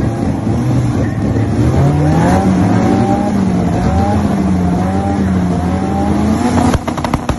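Car engine running hard at high revs on a drag run; its pitch climbs about two seconds in and then holds with a slight warble. Near the end the engine note drops away and sharp crackling pops follow.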